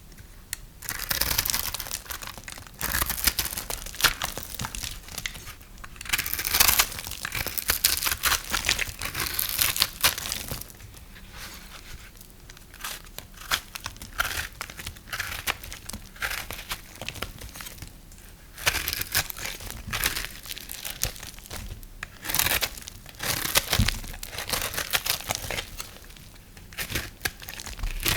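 Knife cutting through dry, brittle soap, crisp crackling and crumbling in repeated strokes of a second or two each, softer for a while in the middle.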